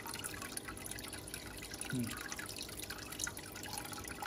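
Aquarium water steadily dripping and trickling, with many small irregular splashes.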